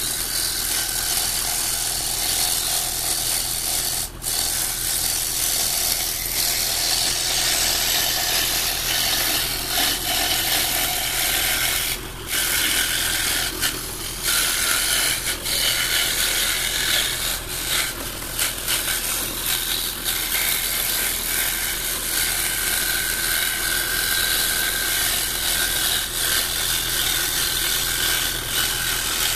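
A scroll saw running with a steady motor hum while its reverse-tooth blade cuts a fretwork pattern through a thin wooden panel. The sound drops briefly a few times.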